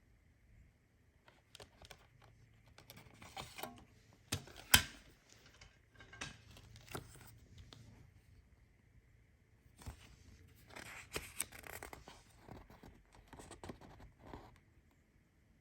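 Hands unwrapping and handling a CD album's packaging: tearing, scraping and rustling of wrapping with scattered sharp clicks, the loudest click a little under five seconds in and a longer stretch of rustling a few seconds later.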